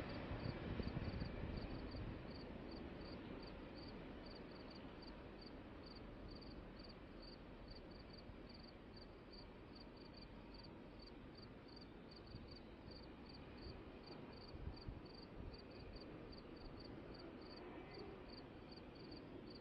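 Crickets chirping steadily, about two chirps a second, while the rumble of a passing freight train fades away over the first few seconds.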